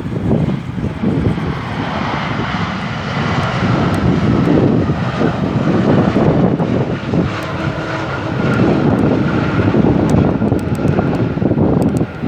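Jet airliner engines running loud and steady, mixed with strong gusting wind buffeting the microphone.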